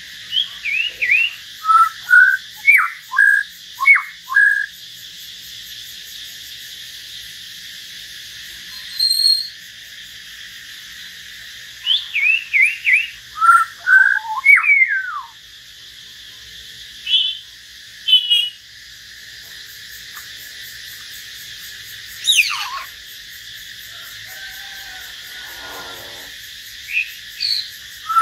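Caged hill myna and white-rumped shama singing: short phrases of clear whistled notes that sweep up and down, with pauses of a few seconds between phrases, over a steady faint hiss.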